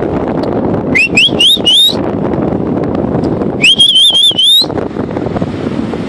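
A person whistling to call the dogs out of the water: four short rising whistles in quick succession, then one longer, wavering whistle that climbs at the end. Wind noise and surf run underneath.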